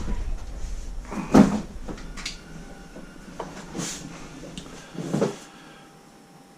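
A few separate knocks and bumps of handling, the loudest about a second and a half in and the last just after five seconds, over quiet room tone that fades near the end.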